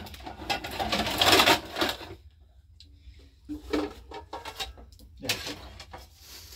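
Liquid glugging out of a plastic jerrycan into a glass, loudest in the first two seconds. Then a run of light clicks and knocks from plastic containers and dishes being handled.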